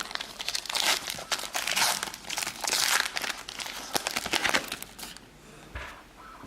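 Foil trading-card pack wrapper crinkling and rustling as it is handled, dense and irregular for about five seconds, then dropping to quieter handling noises near the end.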